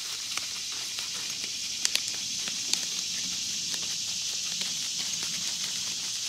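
Handling of an inflatable belt-pack life vest: scattered light clicks and rustles of its plastic and fabric as the pouch is folded shut, over a steady high-pitched hiss.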